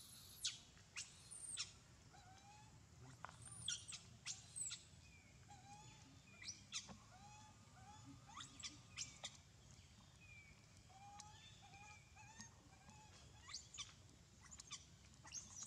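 Faint, scattered animal chirps and squeaks: a dozen or more short, high, quick sweeps and small rising calls, irregularly spaced.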